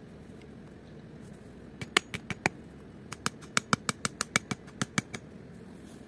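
A quick series of sharp, hard taps: a handful about two seconds in, then a faster run of a dozen or so from about three seconds in, over a steady low hiss.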